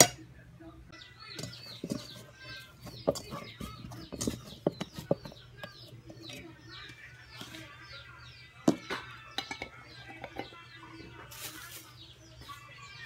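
Small birds chirping over and over in quick short notes, with a few sharp knocks and clicks among them, over a steady low hum.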